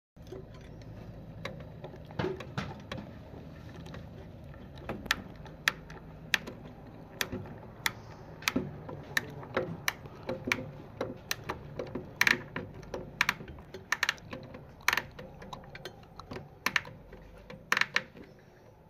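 Irregular small clicks and taps, one or two a second, growing more frequent and louder about five seconds in, from hands working wires and terminal screws at a car audio amplifier.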